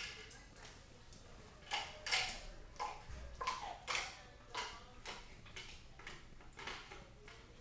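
Irregular light clicks and taps of a dog's claws on a hard polished floor as it steps and sniffs about, roughly a dozen sharp clicks spaced unevenly.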